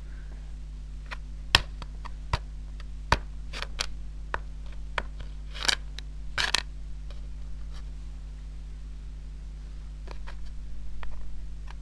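Plastic board-game pawns being picked up, tapped and set down on a Ludo board: a scattering of small clicks and knocks, thickest in the first seven seconds, over a steady low hum.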